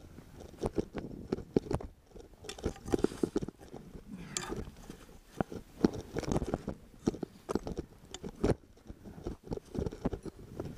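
Footsteps of crampon-shod boots crunching in snow, in an uneven rhythm of sharp crunches and clicks.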